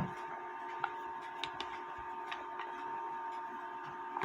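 Light, irregular clicks and taps of small metal parts being handled as a clock weight's threaded rod and catch are fitted, starting with one sharper click, over a faint steady hum.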